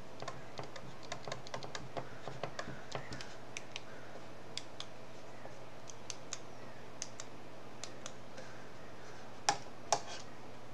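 Stylus tapping and clicking on a tablet screen during handwriting: a string of light clicks, quick and close together for the first few seconds, then sparser, with two louder knocks near the end. A faint steady hum sits underneath.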